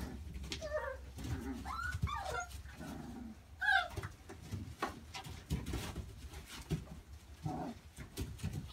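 XL bully puppies giving short, high-pitched cries while play-fighting, the loudest about four seconds in, over the scuffle and rustle of paws in wood shavings.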